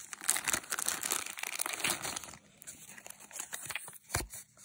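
Clear plastic bags crinkling and rustling as bagged beads are handled, dense for the first couple of seconds, then a few light clicks and a soft thump about four seconds in.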